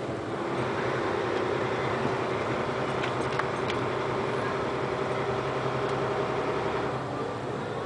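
Steady engine drone and tyre and road noise of a moving vehicle, heard from inside its cabin. The sound eases slightly near the end.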